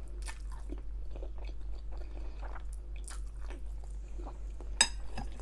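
Close-miked chewing of a mouthful of chicken Alfredo pasta: irregular wet mouth smacks and clicks, with one sharper click near the end.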